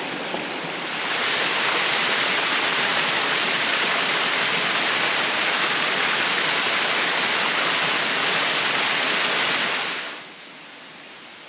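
Lower Doyles River waterfall rushing steadily. The water grows louder about a second in and falls away sharply near the end.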